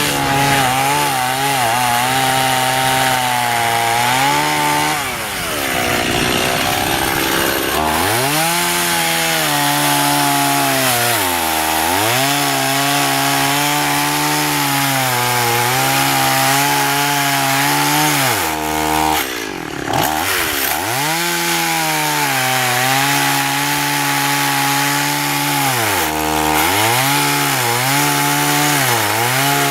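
Stihl MS 180 (018) two-stroke chainsaw cutting into a thick hardwood trunk, its engine note sagging under load and picking back up again and again. The deepest drops come about five to eight seconds in, around twenty seconds in, and a few more near the end.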